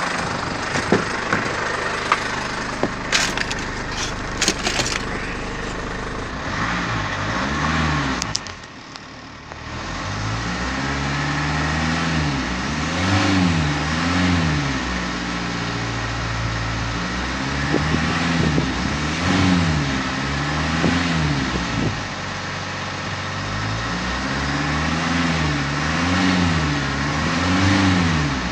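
Ford Ranger's 3.0-litre Duratorq TDCi turbo-diesel engine running and being revved repeatedly, its pitch rising and falling in several swells, heard from the cab. A few sharp clicks and knocks come in the first few seconds.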